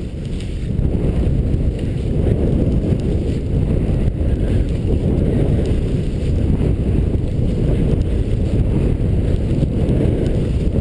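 Wind buffeting the microphone of a helmet-mounted action camera as the skier descends a powder slope: a loud, steady low rumble with no break.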